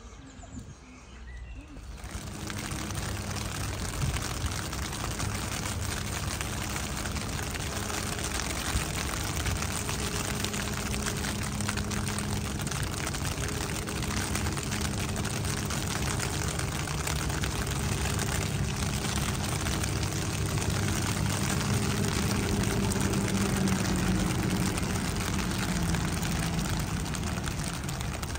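Steady rain pattering densely, starting abruptly about two seconds in, with a low hum like distant traffic underneath.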